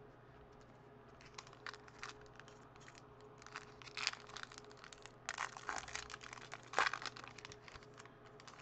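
Foil wrapper of a 2014 Bowman Baseball card pack crinkling and tearing as it is ripped open by hand. The irregular crackles start a little over a second in, and the sharpest comes near the end.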